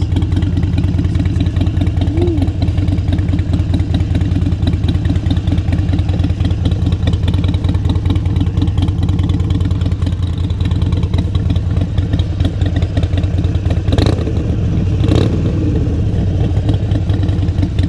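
Harley-Davidson Iron 883's air-cooled V-twin running at a steady idle through a Cobra Short 909 full exhaust, an even, deep pulsing. Two brief, slightly louder pulses about a second apart near the end.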